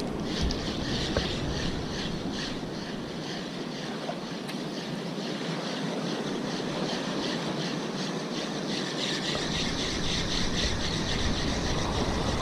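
A spinning reel being cranked steadily to retrieve a lure, its rotor and gears making a fast, even whir close by, over a steady wash of sea water against rocks.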